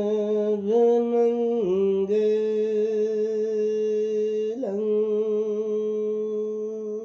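A Buddhist monk's male voice chanting in Pali, holding one long drawn-out note with a few small shifts in pitch. This is the closing blessing of the chanted sutta.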